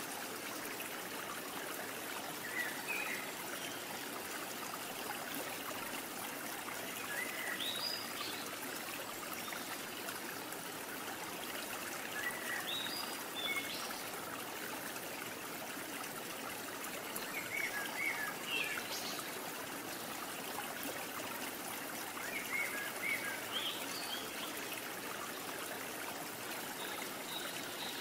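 Steady flowing-water noise like a running stream, with short high chirps in pairs about every five seconds.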